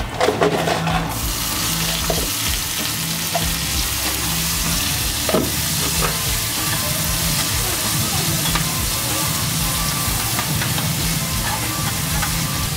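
Pineapple chunks and diced red pepper sizzling in hot oil in a frying pan, stirred with a plastic spatula. A few knocks of the spatula come in the first second, then the sizzle swells and holds steady.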